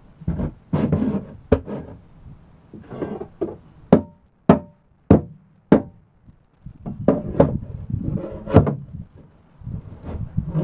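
Sharp knocks and strikes on a wooden subwoofer enclosure as it is being worked apart. Midway there is a run of four hard blows about half a second apart, each with a short ring, and clusters of lighter knocks and bangs come before and after them.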